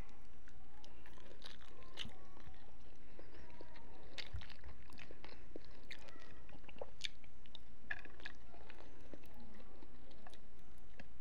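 A person biting and chewing food close to the microphone, with many scattered sharp clicks and crunches from the mouth.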